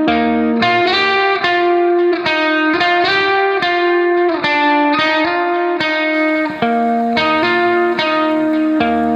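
Background music: guitar melody of plucked notes at a steady pace, with a light effects sound.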